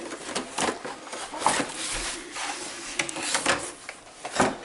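Cardboard Pokémon card collection box being handled and pulled open: irregular scrapes, rustles and knocks of the packaging against a table.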